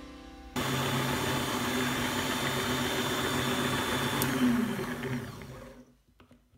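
Electric stand mixer's motor running steadily as its beaters whip cream in the bowl. About four seconds in there is a click, the motor's pitch drops and the sound dies away.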